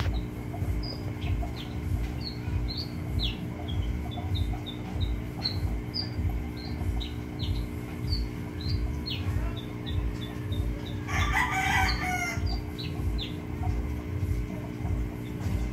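Outdoor ambience: small birds chirping in short high notes over and over, and a rooster crowing once about eleven seconds in. Underneath runs a steady low hum with a throbbing that pulses a few times a second.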